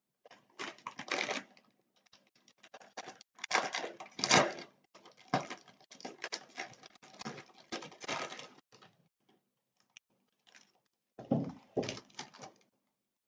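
Packaging of a boxed stationery set being unwrapped and opened by hand: plastic wrap and cardboard crinkling and rustling in irregular bursts, loudest about four seconds in, with a lull around ten seconds.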